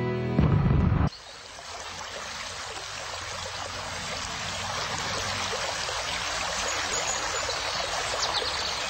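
Music ends about a second in, giving way to water trickling and splashing steadily, like a small garden stream running into a pond, growing slowly louder.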